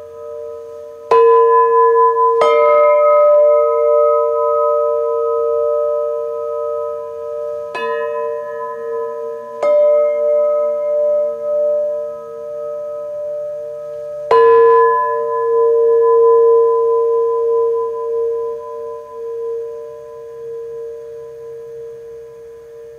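Hanging cast bronze sound plates struck five times, each stroke leaving a long, wavering ring that keeps sounding under the next. The strikes about a second in and about fourteen seconds in are the loudest, and the ringing slowly dies away near the end.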